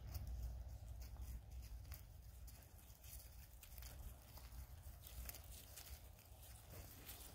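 Faint sounds of Hereford cattle walking through pasture grass, with soft, scattered steps and rustles over a low steady rumble.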